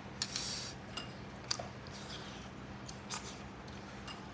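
Close-miked eating of chicken: scattered bites and chewing, with sharp clicks and a short crunch about half a second in, over a faint steady hum.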